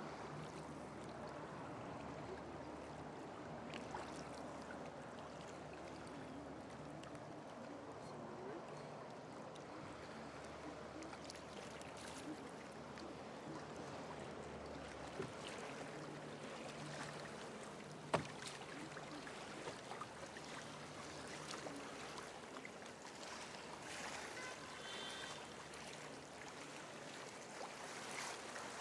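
Even rushing noise of river water and wind around a canoe on the move, with scattered small clicks and one sharp knock a little past the middle.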